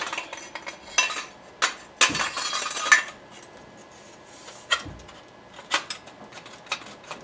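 Metal M-Lok handguard sliding over the barrel nut onto an AR-15 upper receiver: a scraping slide of about a second, about two seconds in. Light metal clicks and clinks come before and after it as the rifle is handled.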